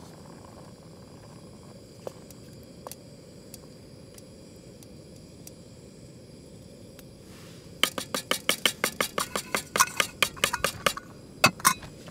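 Steady low rushing noise, then a quick run of sharp clinks and taps for about three seconds, roughly ten a second, with two louder clinks near the end.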